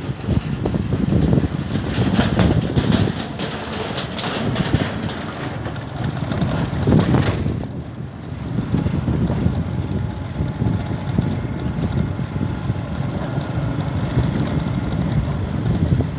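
Motorbike engine running under way, with heavy wind noise on the microphone. Irregular clattering during the first several seconds as the bike crosses a steel-grated bridge deck.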